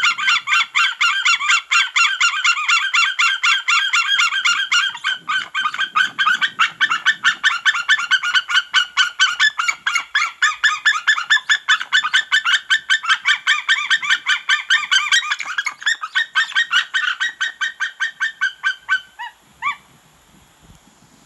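A pair of white-tailed eagles calling loudly in a fast, unbroken run of repeated notes, several a second. The calls slow near the end and finish with a couple of falling notes. It is territorial alarm calling at a juvenile eagle that landed in a nearby tree.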